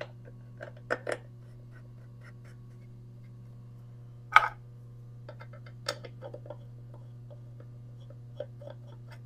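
Metal clicks and knocks as a surface grinder's cast wheel guard is seated and its knurled thumb screws are handled, with the loudest clank about four seconds in. A steady low hum runs underneath.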